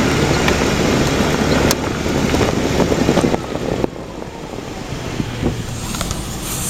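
Car on the move: a steady rumble of road and running noise with scattered short clicks, quieter after about four seconds.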